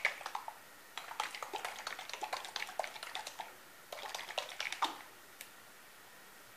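Handling noise: a quick run of small sharp clicks and taps, in two bursts that stop about five seconds in.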